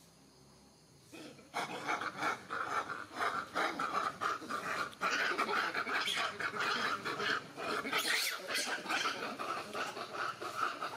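Long-tailed macaques screaming in a fight, loud and continuous from about a second and a half in.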